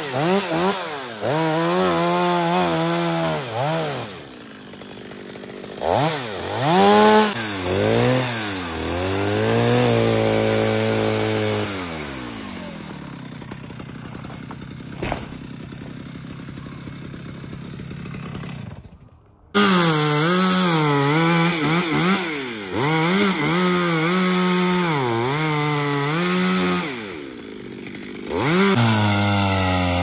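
Petrol chainsaw cutting through a coconut palm, its two-stroke engine revving up and bogging down again and again under load. It runs quieter for a while in the middle, drops out abruptly about two-thirds through, then returns to rising and falling revs.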